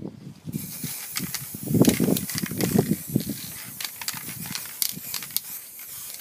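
Aerosol spray can, likely the clear lacquer, hissing in a long continuous spray that starts about half a second in and cuts off near the end. Uneven low rumbling sits underneath, loudest about two seconds in.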